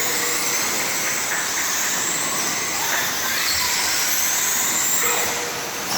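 Several off-road RC race cars running around a dirt oval together, a steady high motor whine that rises and falls as the cars pass.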